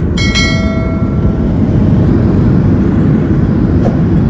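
Airliner cabin noise as the plane rolls on the ground: a loud, steady low rumble. About a quarter second in, a bell-like ding sound effect rings and fades over about a second.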